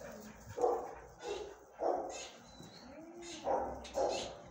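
A dog barking, about five barks with a pause in the middle.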